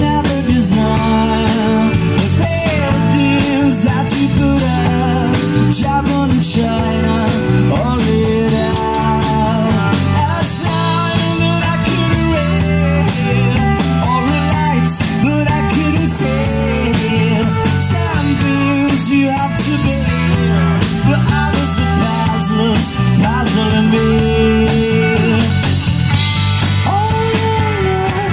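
Live rock band playing: electric guitar, electric bass and drum kit, with a man singing into a microphone through the PA.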